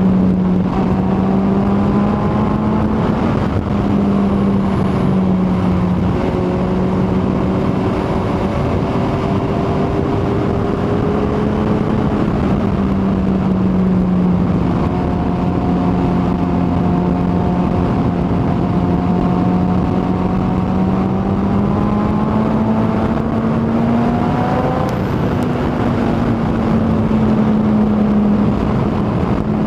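Kawasaki ZX-14R inline-four engine running at a steady cruise, its note drifting gently up and down with the throttle, under a constant rush of wind and road noise.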